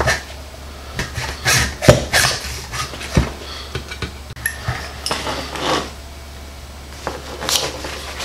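Metal hand tool scraping and cutting at a hard plastic sling clip clamped in a small bench vise, in irregular strokes, with a sharp knock about three seconds in and small clicks as the part is handled.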